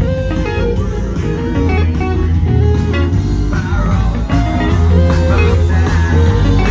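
A live band playing blues-style rock through PA speakers, with a guitar playing a melodic line over a steady bass.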